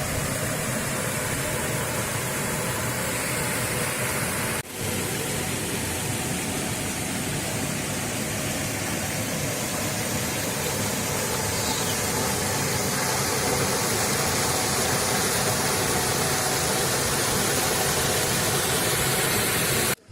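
Waterfall: a steady rush of falling water. There is a momentary break about four and a half seconds in.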